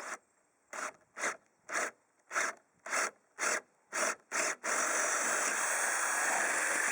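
Power drill with a large bit boring through a wooden beam: nine short rasping bursts about twice a second, then continuous drilling from about two-thirds of the way in.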